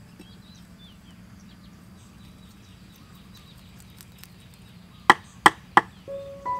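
Kitchen knife chopping down on a thick round wooden chopping board: three sharp chops about five seconds in, roughly a third of a second apart, with small birds chirping faintly before them.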